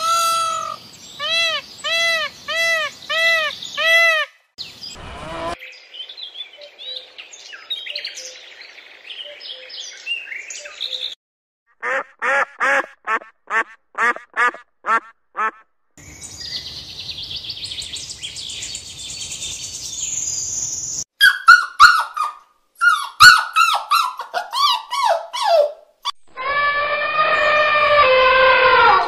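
A string of short animal-call clips joined with abrupt cuts, mostly bird-like calls. It opens with about six repeated arched calls, has a fast series of about ten calls in the middle, and ends on one long wavering call.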